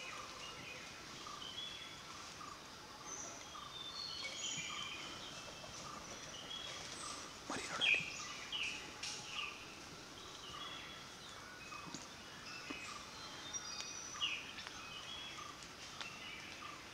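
Forest birds chirping and calling, many short whistled notes over a steady background hiss, with one louder call about eight seconds in.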